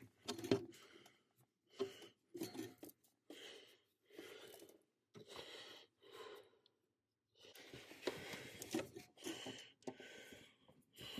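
A person breathing hard in short bursts while straining with pliers at a tight clevis-pin keeper on a brake pedal, with a few small metal clicks from the pliers.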